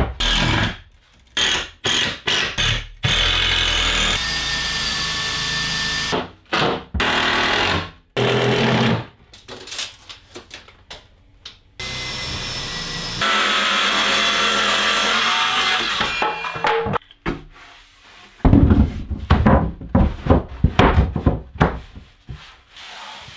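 Cordless drill running in several spells of a few seconds each, driving screws into plywood and timber, with short blips of the trigger in between. Near the end, a quick run of knocks and thumps of wood being handled.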